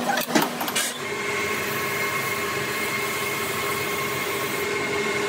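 Metal lathe running steadily, spinning a steel shaft in its three-jaw chuck, with a steady whine. A few sharp metallic knocks come in the first second, before the steady running sets in.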